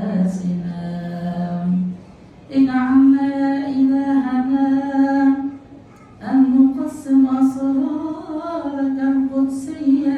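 Unaccompanied male voice chanting a Coptic liturgical melody in long held notes, a wordless melisma that steps up in pitch after a first breath. It breaks off twice for a breath, about two and six seconds in.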